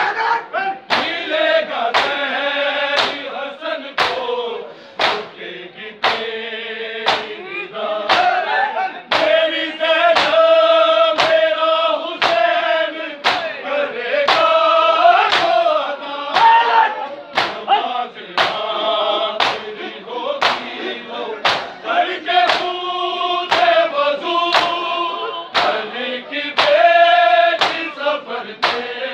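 Group of men reciting a noha (mourning lament) in chorus, with sharp chest-beating slaps of matam keeping a steady beat about once a second.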